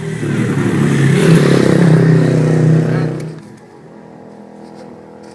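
A motor vehicle engine running loud for about three seconds, then falling away sharply to a quieter steady hum.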